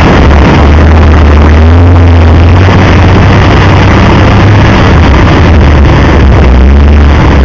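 Four-wheel-drive engine running at low speed off-road, a steady low rumble recorded very loud, with a couple of brief rises and falls in pitch.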